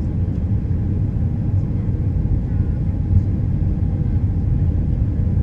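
Steady low rumble of cabin noise inside a Boeing 737-300 descending on approach: engine and airflow noise heard through the fuselage.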